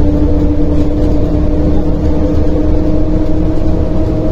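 Cabin noise of a MAZ-105.065 city bus cruising at a steady speed: low engine and road rumble with a steady whining tone over it.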